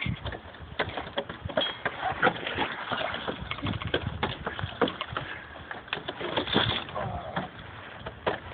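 Irregular knocks and clicks of lineman's climbing spurs biting into wooden utility poles as several climbers step up and around the poles.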